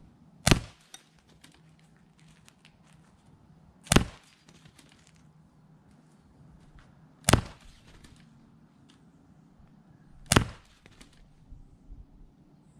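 Four pellet pistol shots, spaced about three seconds apart, each a sharp crack.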